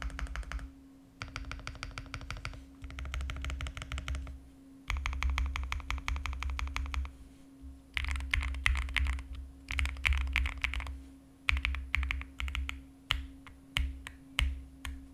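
Typing on an Owlab Spring Alice-layout mechanical keyboard with SOTC linear switches lubed with Krytox 205g0, PBTfans keycaps and a polycarbonate plate. It starts with fast continuous runs of keystrokes, then turns to shorter clusters of presses with pauses between. A faint steady hum sits underneath.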